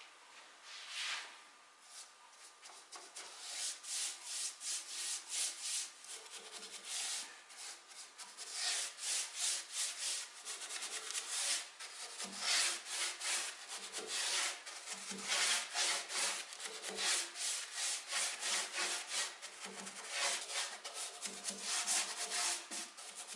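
A bristle paintbrush applying diluted shellac to a wooden cabinet top in quick, repeated back-and-forth strokes, making a dry swishing rub on the wood. It is fainter for the first couple of seconds, then goes on steadily.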